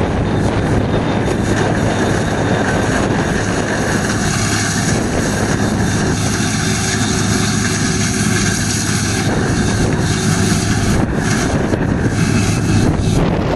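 Large diesel farm machinery running steadily, a constant loud engine drone with a low hum and no breaks.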